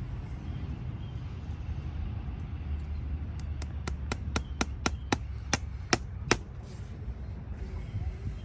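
A farrier's hammer striking metal: about eleven quick, sharp taps, roughly three or four a second, starting about three seconds in.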